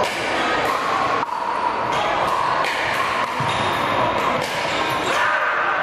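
Pickleball rally: paddles striking a hard plastic ball, heard as a quick series of sharp pops about two-thirds of a second apart, over a murmur of background voices.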